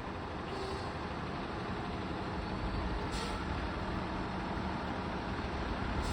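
Fire engine's diesel engine running, its rumble growing slightly louder, with a short hiss of air about three seconds in.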